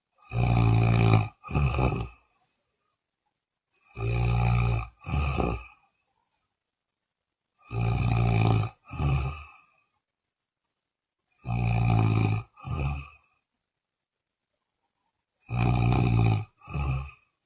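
A person snoring loudly in a steady rhythm, five times, about every four seconds. Each breath gives a long, low, buzzy snore followed at once by a shorter one.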